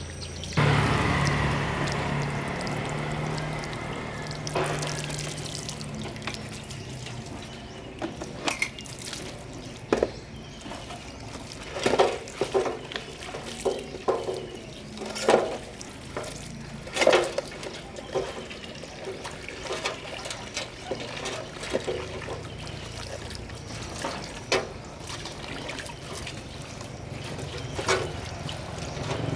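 Water running and trickling, starting suddenly about half a second in with a low hum under it for the first few seconds, and many short sharp knocks and clicks scattered throughout.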